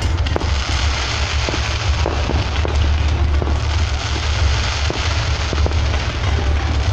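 Fireworks crackling and popping: a dense, continuous hiss of crackle with many small sharp cracks through it, over a steady low rumble.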